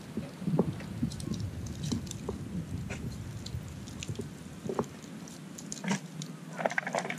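Wood fire of split logs burning in a steel fire ring, crackling with irregular sharp pops and snaps over a low rumble that drops away about two-thirds of the way through.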